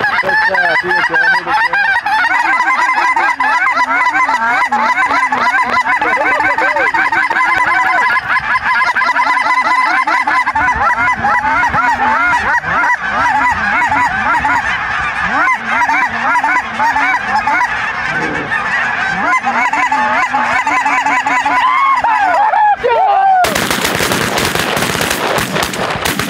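A large flock of lesser Canada geese honking and cackling continuously, many birds calling at once. About 23 seconds in, this is cut across by a rapid volley of shotgun fire from several guns.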